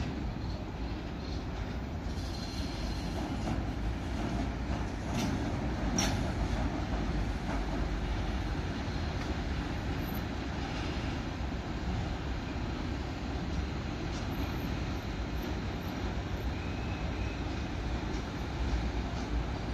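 Freight train of container and swap-body flat wagons rolling past on the rails, a steady low rumble with a few sharp clicks.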